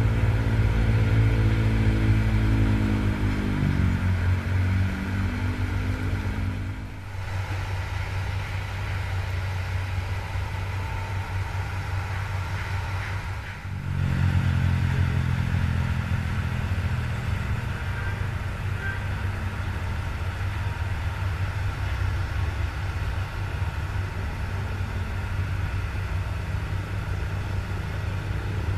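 Hitachi ZX200 hydraulic excavator's diesel engine running, its revs dropping over the first few seconds and then holding steady. The sound dips briefly twice, about a third and halfway through.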